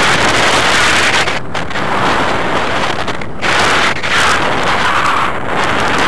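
Airflow buffeting the microphone of a camera carried on a tandem paraglider in flight: a loud, rushing wind noise that rises and falls, dropping away briefly twice.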